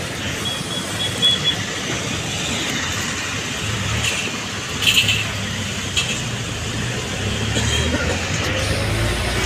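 Road traffic noise with vehicle engines running. A low engine hum grows stronger about three and a half seconds in, with a few short knocks and a brief high thin tone near the start.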